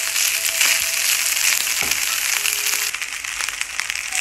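Rice sizzling as it fries in oil in a pan, stirred with a wooden spatula, with a few brief scrapes and knocks of the spatula against the pan.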